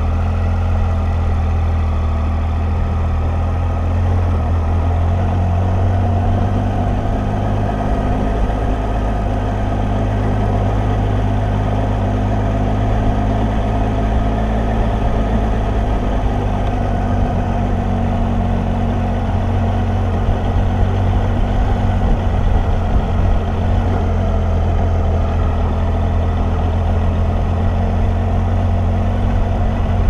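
Triumph adventure motorcycle's engine running steadily at low revs while the bike rolls slowly over a cobblestone road, heard close up from the bike itself.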